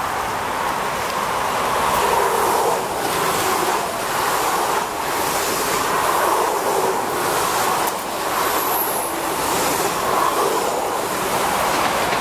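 Electric multiple-unit train running through the station at speed without stopping. Its wheels and the air make a loud, steady rush that swells and dips as the cars go past.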